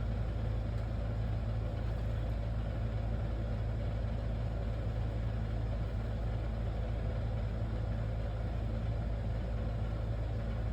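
Steady low mechanical hum, like a motor running, unchanging throughout.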